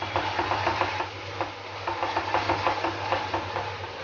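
A spoon stirring ginger-garlic paste and spice powders in hot oil in a kadai: a quick, uneven run of light scrapes and taps against the pan over a faint sizzle, with a steady low hum underneath.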